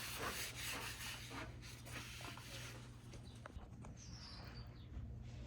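Faint scratching and light handling noises with small ticks, dying away after about three seconds, over a low steady hum.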